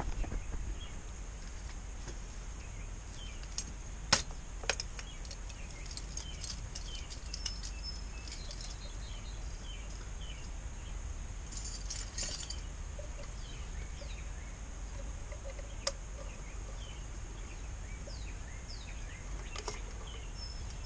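Outdoor ambience: small birds chirping over a steady high insect drone and a low rumble, with a few sharp clicks and a short spell of metallic clinking about twelve seconds in.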